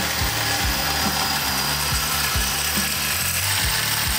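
Power-driven hole saw on a tube notcher cutting steadily through a steel roll-cage tube, stopping just after the end.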